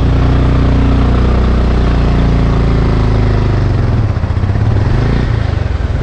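Motorcycle engine running at low road speed, its note sagging in pitch a couple of seconds in and turning rougher later on, over a steady rushing noise.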